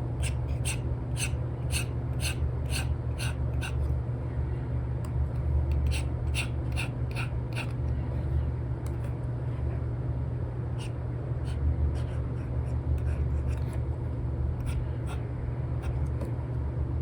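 Apple Pencil tip with an Elecom nib tapping and stroking on an iPad's paper-like screen film while sketching: short dry ticks, about two a second in runs, then sparser near the end, over a steady low hum.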